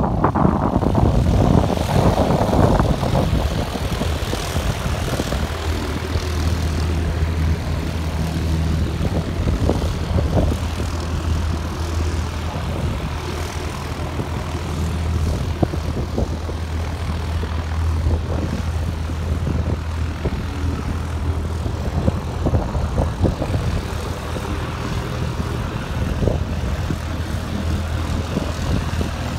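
Propeller aircraft engine running steadily at a low, even pitch, a little louder and rougher in the first few seconds.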